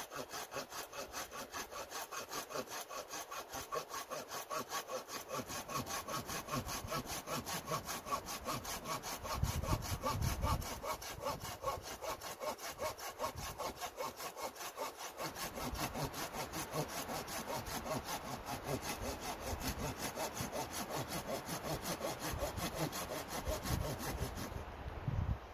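Folding hand saw cutting through a wooden pole with steady back-and-forth strokes, about three a second; the sawing stops just before the end.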